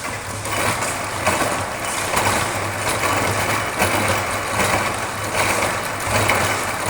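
Pedal-powered washing machine being pedalled: steady mechanical churning of the drum and drive, surging in a regular rhythm a little faster than once a second.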